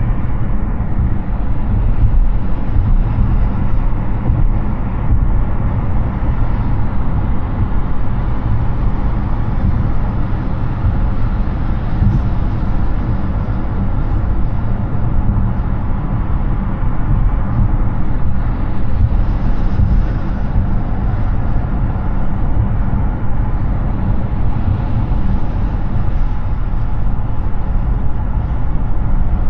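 Steady highway road noise from an electric Hyundai Ioniq 6 cruising at speed, mostly low tyre rumble and rushing air. There is no engine note.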